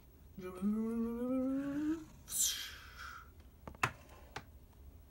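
A person's voice humming one note that slowly rises in pitch for about a second and a half, followed by a short hiss that falls in pitch. Two sharp clicks come near the end, the first the loudest sound of all.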